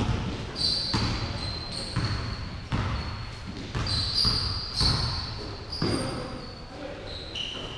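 Basketball bouncing on a hardwood gym floor about once a second, each bounce booming in the hall, with short high-pitched squeaks of sneakers on the court in between.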